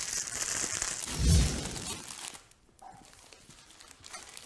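Thin plastic bag crinkling as it is handled and closed, with a dull thump about a second in. The crinkling stops after about two seconds, leaving only faint small rustles and clicks.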